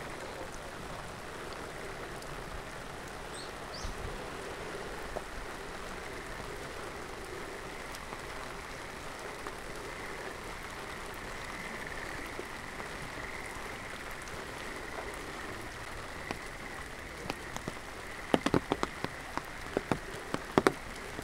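Steady rain falling, with a faint, steady high-pitched trill in the background. In the last few seconds, large drops begin landing close by in loud, sharp, irregular taps.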